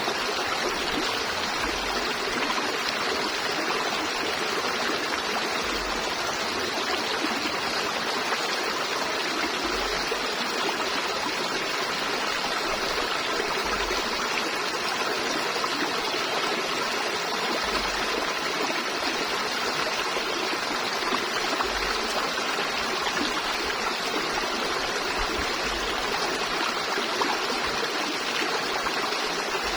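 River water flowing steadily: an even rush with trickling.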